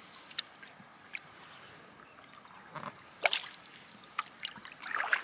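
Canoe paddle strokes in calm lake water: short splashes and drips as the wooden blade dips and pulls, the loudest about three seconds in and more near the end.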